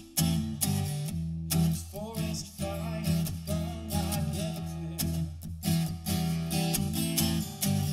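Acoustic guitar strummed in a steady rhythm, with a man's voice singing over it from about two seconds in.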